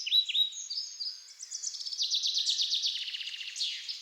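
A songbird singing: a run of short chirps, each sweeping downward, then a fast trill of rapid notes.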